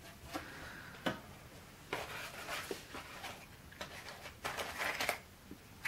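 Cardboard matchboxes handled on a wooden table: a few light knocks and short rustles.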